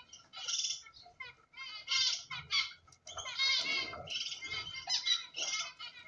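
Cockatiels chirping: a busy string of short, high-pitched chirps and chattering calls, several a second, loudest about two and three-and-a-half seconds in.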